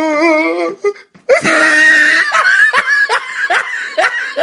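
A person laughing. A drawn-out, wavering voiced sound gives way after a short break about a second in to hearty laughter in rhythmic bursts, about two or three a second.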